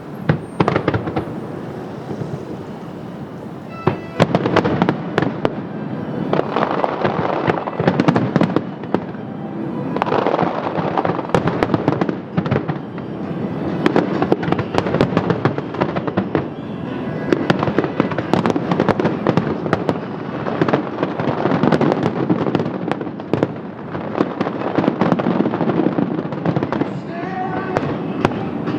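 Aerial fireworks going off in rapid volleys: a dense run of sharp bangs and crackles that swells and eases every few seconds, with music playing along.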